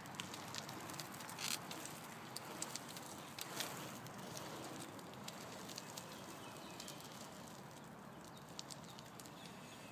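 Trikke T8 carving trike's small wheels rolling over asphalt: a faint steady rolling rumble with scattered small clicks and rattles from the frame, slowly fading.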